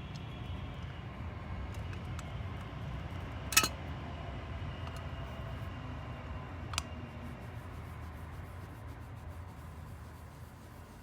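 Two sharp metallic clicks from small parts being handled, a loud one about a third of the way in and a softer one about three seconds later, over a steady low hum.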